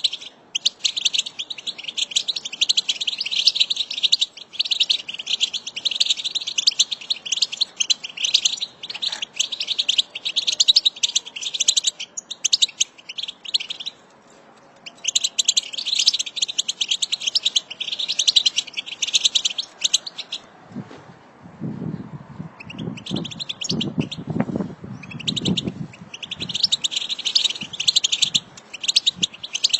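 Flock of European goldfinches twittering in a dense chorus of rapid, high chirps, with a short break about halfway through. About two-thirds of the way through the twitter thins and a series of low thumps sounds underneath.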